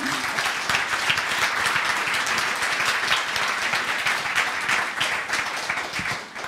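An audience applauding: many hands clapping together, holding steady and then dying away near the end.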